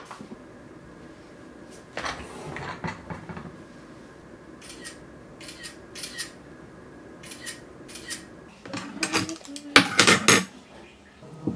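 Household handling sounds: short rustles and light knocks, then a louder clatter of a plastic takeout food tray being handled near the end.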